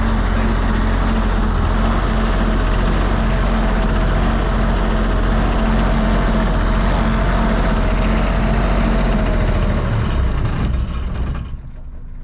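Diesel generator engine running steadily while low on diesel, then winding down and stopping about eleven seconds in.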